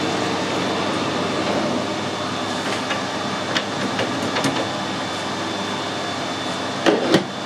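Metal lathe running with a steady hum, with a few light clicks midway and two sharp metallic knocks close together near the end as the carriage and tool post are handled.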